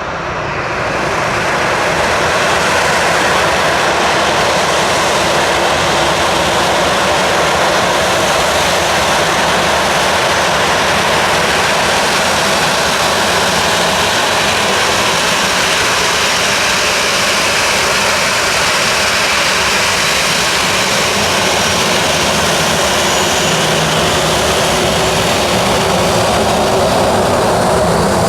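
Boeing 737-700's CFM56-7B jet engines running loud, the noise swelling over the first two seconds and then holding steady.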